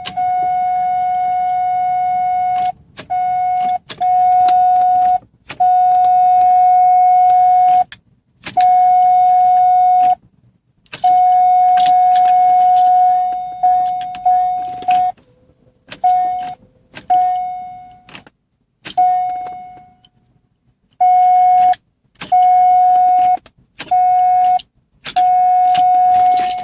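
A 2002 Corvette's electronic warning chime: one steady high tone sounding in stretches of one to three seconds. It stops and starts again over and over, some stretches cut off suddenly and a few fading out.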